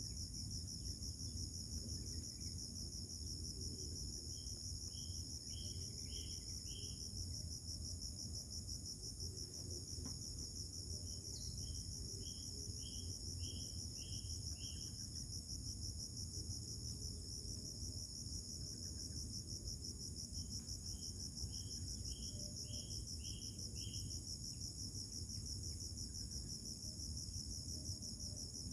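A steady, high-pitched chorus of insects, typical of crickets, trilling without a break. Three times, a run of five or six short, evenly spaced high notes rises above it.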